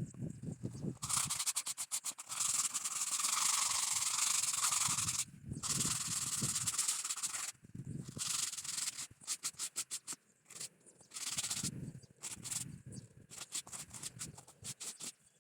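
Sandpaper rubbed by hand over wooden boards. It goes in quick back-and-forth strokes at first, then a long continuous stretch, then shorter bursts with pauses between them.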